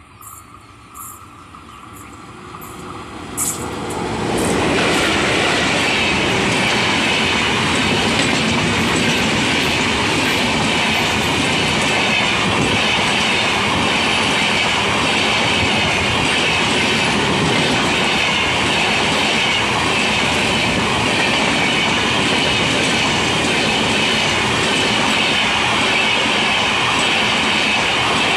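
WAP-4 electric locomotive and a long rake of LHB passenger coaches passing at speed. The rush of wheels on rail rises over the first four seconds or so as the locomotive draws level. It then holds loud and steady as the coaches run by, with a rapid clickety-clack.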